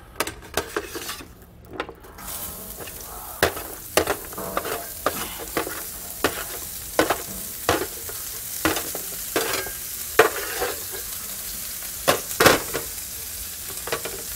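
Sliced yellow onions sizzling in bacon grease on a hot steel flattop griddle, the sizzle building about two seconds in. A metal spatula repeatedly scrapes and clacks against the sheet pan and griddle as the onions are pushed on.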